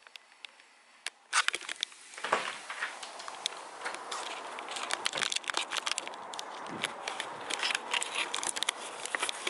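Crackling, rustling handling noise from a phone camera being carried, with a few sharp clicks about a second in, then footsteps and rubbing as she walks along a paved path.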